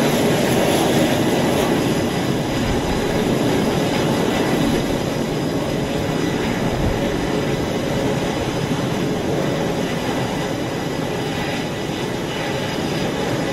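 Jet aircraft engines running on a carrier flight deck: a loud, steady rush of noise with a faint, steady high whine in it.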